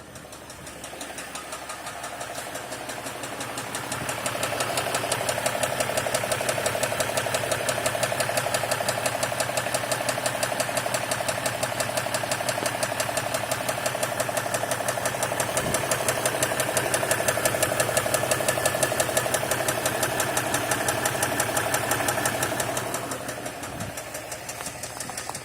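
2016 Ram 1500 EcoDiesel's 3.0-litre V6 turbodiesel running with a steady, rhythmic knock from the bottom end, which the owner takes for a rod knock. The sound grows louder over the first few seconds and fades near the end.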